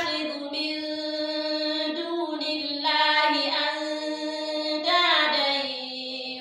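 A woman's voice reciting the Quran in Arabic, chanted melodically with long held notes and short breaks between phrases.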